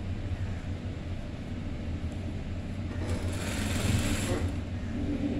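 Singer industrial sewing machine running, its motor humming steadily, with a louder, brighter stretch of machine noise about three seconds in as fabric is fed under the needle.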